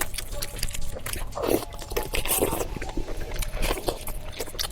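Close-miked eating sounds: a person biting and chewing, with wet, squishy mouth noises and irregular small clicks.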